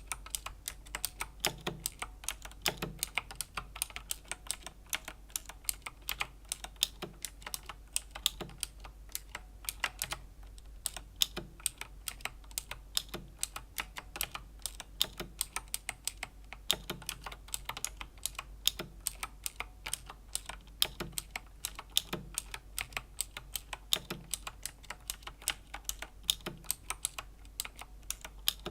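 Slow typing on a Razer BlackWidow Chroma V2 mechanical keyboard with clicky Razer Green switches: a continuous run of sharp key clicks, several a second. There is a short pause about ten seconds in, and a deeper knock comes every second or so among the clicks.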